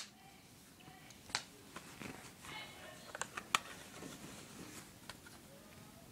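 Quiet handling of plastic makeup cases and tubes being fumbled open: a few scattered sharp clicks and taps over low room noise.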